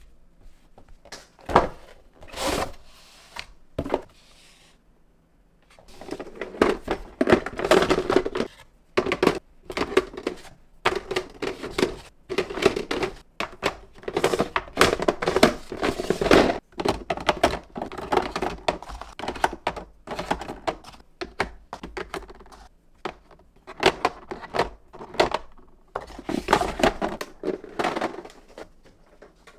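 Rapid, irregular knocks and clatter of kitchenware being handled on a hard surface, with a short pause about five seconds in.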